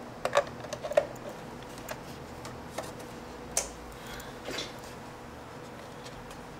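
Sharp clicks and knocks from handling a plastic digital alarm clock as its power plug is pushed into the back of the case and the clock is turned around. The loudest come in a quick cluster in the first second, followed by a few scattered taps up to about five seconds in.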